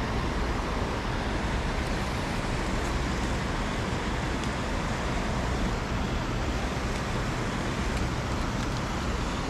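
Steady outdoor rushing noise with a low rumble beneath it and no single event standing out.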